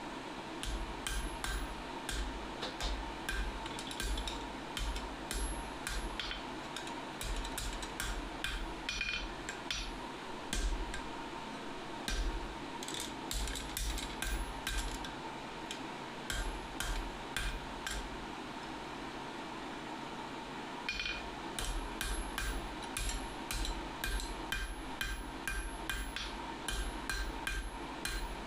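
Hand hammer forging hot steel on an anvil: runs of blows at about two to three a second, broken by short pauses. The steel is a burnt tong jaw being hammered back up to thickness.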